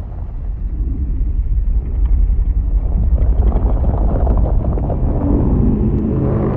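Godzilla-style atomic charge monster sound effect: a deep rumble that swells in loudness, with a low droning hum joining in near the end as the charge builds.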